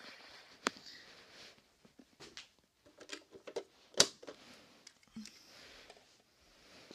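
Quiet handling of small die-cast toy cars and a plastic toy truck on carpet: soft rustling with a few light clicks and knocks, the sharpest about four seconds in.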